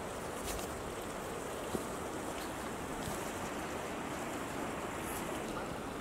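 Steady rushing outdoor ambience of a mountain slope, with a faint tick a little under two seconds in.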